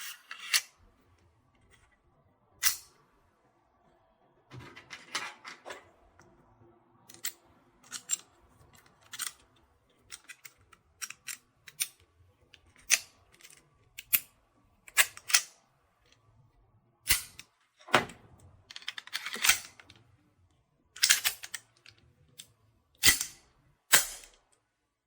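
Full-metal Colt 1911-style gel blaster being handled: a string of sharp metallic clicks and clacks, some in quick pairs, with short pauses between.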